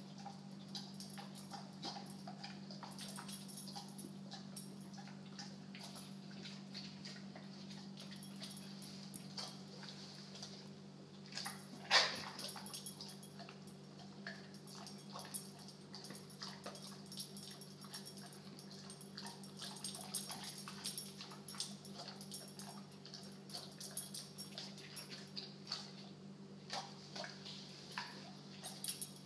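American bulldog whimpering faintly, with small irregular mouth clicks and smacks over a steady low hum, and one sharper click about twelve seconds in. The dog is queasy after eating a bully stick.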